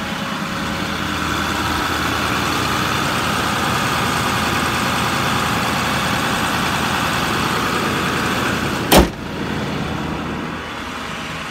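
Ford 6.4 L Power Stroke V8 turbo diesel idling steadily. A single sharp knock about nine seconds in.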